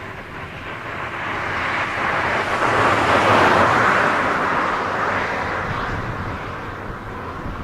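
An aircraft passing by: its noise swells to a peak about three and a half seconds in, then slowly fades away.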